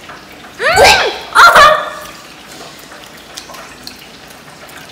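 Two short, high-pitched wordless cries from a child's voice about a second in, each rising and falling in pitch, followed by low room noise with a few faint clicks.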